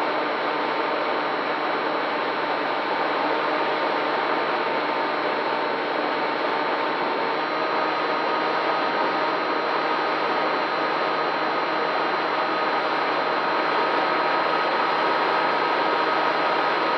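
FPV quadcopter's brushless motors and propellers whirring steadily in flight, the pitch of the whine shifting slightly about seven and a half seconds in.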